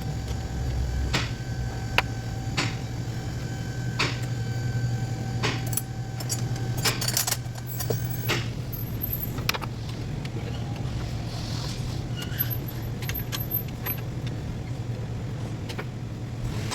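Ford Taurus V6 engine running with a steady low hum, overlaid by sharp metallic clinks and taps every second or two.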